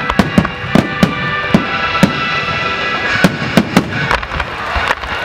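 Fireworks going off in a quick, irregular series of sharp bangs, about a dozen in all, over music with long held notes.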